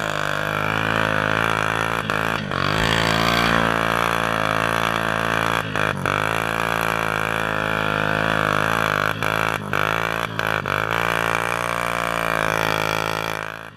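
ATV engine running under load as the quad pushes through deep mud, a steady drone with a few brief dips where the throttle eases off.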